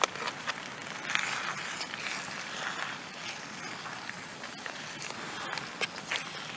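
A spoon stirring beef stew in a camping pot, with scattered scrapes and clicks against the pot, over a steady hiss.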